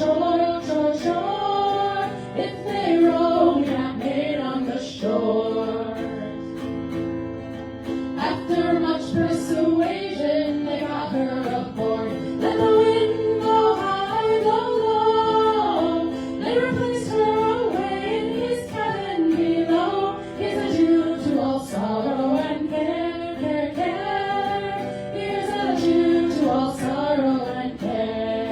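Live singing by a group of women's voices in harmony, a folk song.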